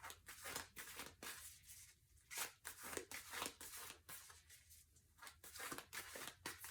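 Faint, irregular papery rustling and clicking of tarot cards being handled.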